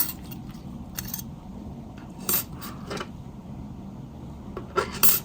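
Short, sharp metallic clicks and clinks of small tools and phone parts being handled and set down on a work surface: about five separate clicks, the loudest a quick pair near the end.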